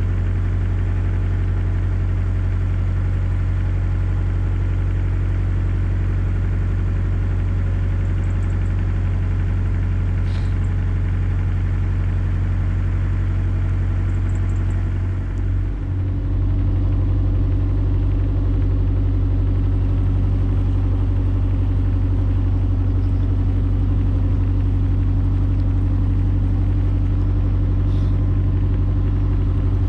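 Narrowboat's diesel engine running steadily while cruising. About halfway through the sound dips briefly, then runs a little louder.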